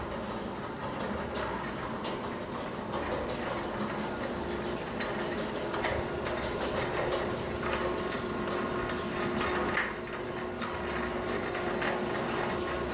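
Automatic sliding gate running along its ground track on its freshly replaced wheels: a steady motor hum with the rolling of the wheels and light rattling clicks.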